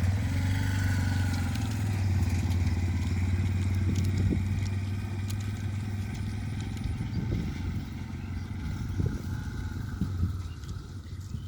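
A small engine running steadily with a low hum, slowly growing fainter; a few light clatters near the end.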